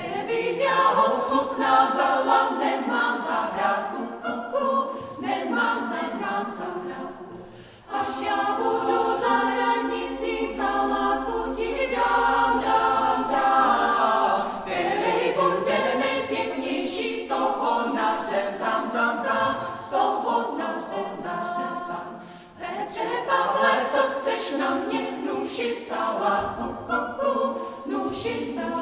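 Choir singing a Czech folk song a cappella, in phrases with short breaks between them.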